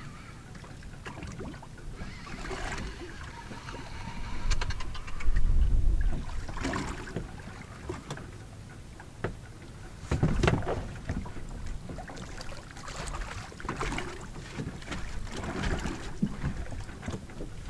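Wind and sea noise on a small drifting boat at sea: a steady low rumbling haze with scattered knocks and clatters. A louder low rumble comes about five seconds in and lasts about a second and a half.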